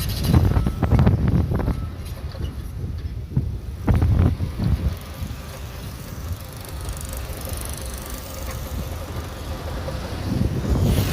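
Shantui DH17C3 bulldozer working: its diesel engine runs steadily under a low rumble, with louder bursts of clanking and clatter in the first two seconds and again about four seconds in.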